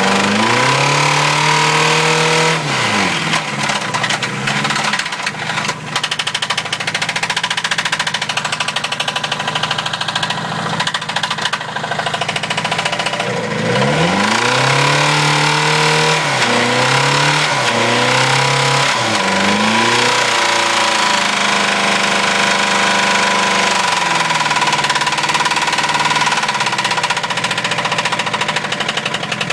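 Mazda B2000 pickup's four-cylinder engine knocking hard from a failed connecting-rod bearing (rod knock). It is revved up sharply about a second in, several times in quick succession in the middle, and once more later. Between revs it falls back to a rough idle.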